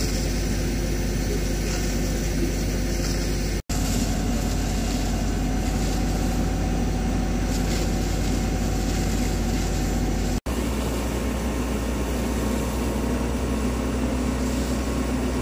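Fire engine's pump engine running steadily while a hose jet sprays water, with the sound cutting out briefly twice where the footage is spliced.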